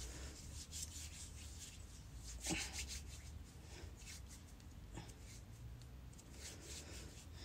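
Hands rubbing together, working hand sanitizer in to clean product off the skin: faint, repeated rubbing strokes, with a slightly louder rub about two and a half seconds in.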